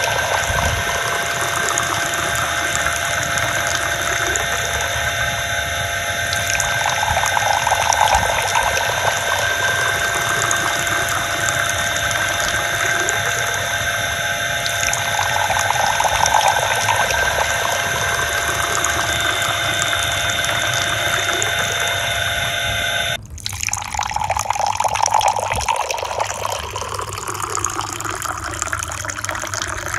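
Miniature electric water pump running with a steady whine while its jet of water splashes into a small plastic pond. About three-quarters of the way through the sound changes abruptly to water poured from a small metal bucket splashing into a trough.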